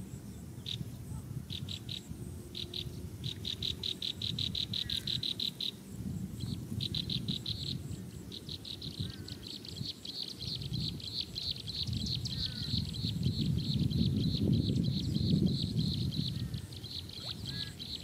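An insect, cricket-like, chirping in rapid even pulses: short runs at first, then an unbroken pulsed trill from a little before halfway. A few faint short bird chirps and a low rumble, heaviest about two-thirds through, lie underneath.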